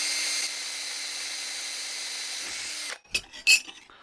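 DeWalt cordless drill running at a steady whine while drilling through a metal plate, then stopping abruptly about three seconds in. A few sharp clicks and one loud knock follow.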